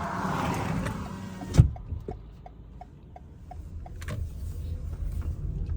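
Inside a car cabin: a passing car's rush fades out and ends in a click. The turn indicator then ticks about two and a half times a second for a couple of seconds, and a second click follows. Low engine and road rumble runs underneath.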